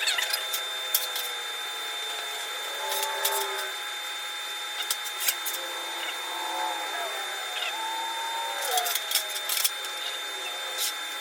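TIG welding arc on stainless steel from a WeldPro TIG 200 inverter welder: a steady hiss with scattered sharp crackles and a thin steady high whine.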